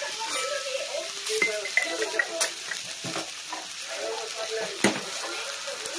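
A thin usuyaki pancake frying on a thick iron teppan griddle, sizzling steadily, with a few sharp clicks, the loudest one near the end.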